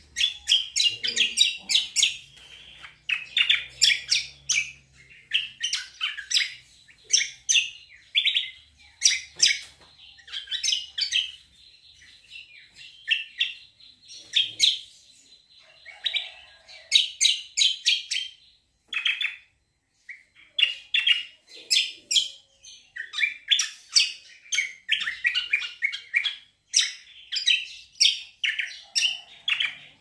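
Caged kecial kombo (cucak kombo) singing in full voice: long, fast runs of high chirping notes, phrase after phrase, broken by short pauses.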